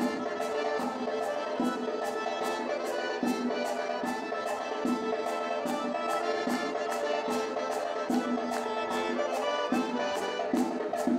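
Traditional Circassian dance music with a steady percussive beat of about three strikes a second, accompanying a couple dance.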